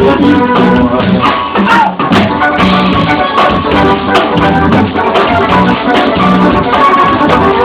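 A live band plays an instrumental passage: piano accordion holding chords over acoustic guitar, fiddle, upright bass and a drum kit.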